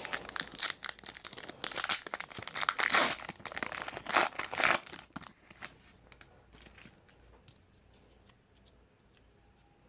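Trading-card pack wrapper being torn open and crinkled: rips and crackles for about five seconds, then a few faint clicks before it goes quiet.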